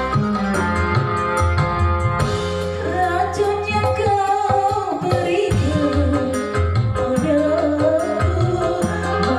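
Song with keyboard backing and a steady drum beat; a woman's singing voice comes in about three seconds in and carries the melody.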